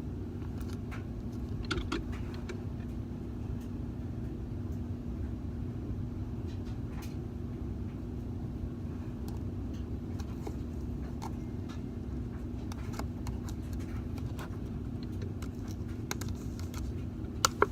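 A steady low hum with one even faint tone, and scattered faint clicks and crackles as slime is drizzled into instant snow.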